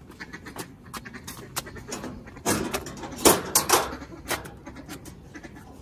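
Scattered light knocks and rattles from a rusty sheet-metal door being handled by a small child, busiest and loudest about two and a half to four seconds in.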